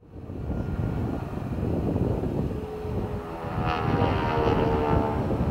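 Tiger Moth biplane's piston engine and propeller running steadily as the plane rolls along the runway, with a steady tone rising above the drone from about halfway through.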